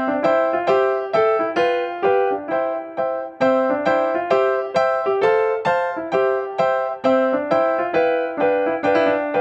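Background music: a keyboard melody of evenly paced struck notes, about three a second, each ringing and fading before the next.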